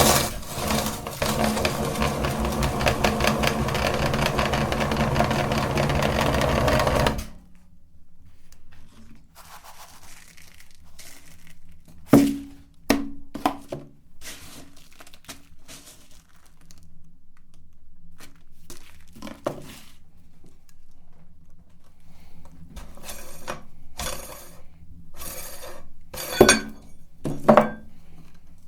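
Electric meat grinder running and crunching hard candy, switched off about seven seconds in. Scattered clicks, clatter and a few sharper knocks follow.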